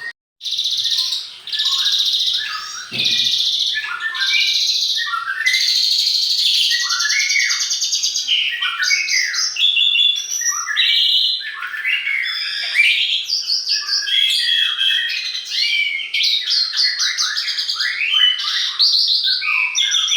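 Songbird singing a fast, varied song of overlapping chirps, trills and sweeping notes, continuous after a brief drop-out to silence just after the start.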